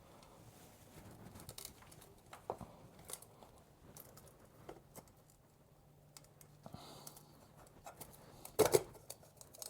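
Faint scrapes and light clicks of hands working the headlight's retaining clip loose, with a louder brief clatter of a few sharp knocks near the end.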